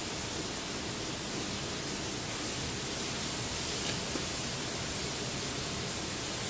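Steady, even hiss of background room noise, with a faint tick about four seconds in.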